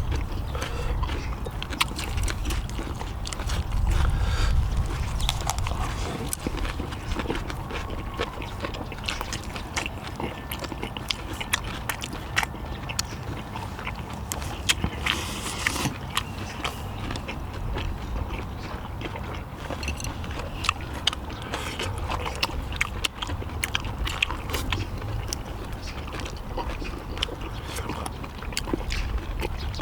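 People eating stir-fried small octopus and boiled pork belly: chewing and biting, with frequent small clicks throughout, over a steady low rumble.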